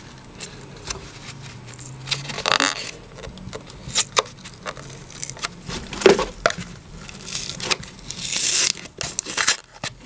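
A large plastic tub of laundry powder being worked open by hand: scattered clicks and knocks of the plastic lid and container, with several short stretches of tearing and crinkling, the longest shortly before the end.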